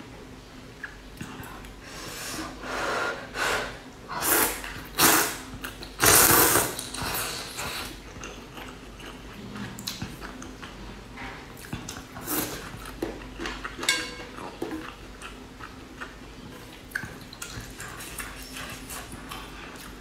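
Eating sounds from a bowl of rice noodle soup: noodles slurped and chewed, with chopsticks and a plastic spoon clicking against a metal pot. The loudest slurps come about four to eight seconds in.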